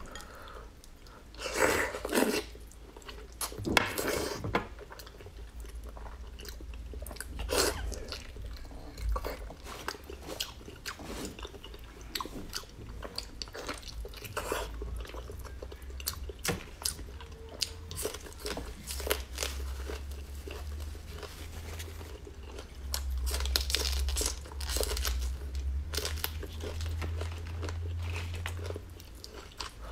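Close-miked chewing and biting of braised beef knuckle-bone meat and gristle, with many short, sharp crunches and wet mouth sounds throughout.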